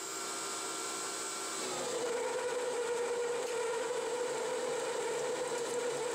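9x20 benchtop metal lathe, CNC-converted, taking a heavy roughing cut with a carbide insert at 0.045-inch depth and 6 inches per minute. The motor and belt drive run with a steady whine, and about two seconds in the pitch drops and settles lower as the spindle slows from 700 to about 580 rpm under the load of the cut.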